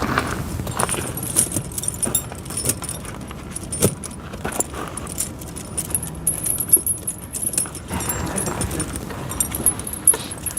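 Steel links of pewag Doppelspur tractor snow chains rattling and clinking irregularly as the chain is handled.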